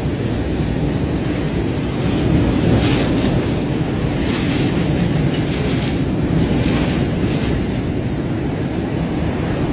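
Hurricane-force wind blowing steadily with driving rain, buffeting the microphone, with several gusts swelling and fading.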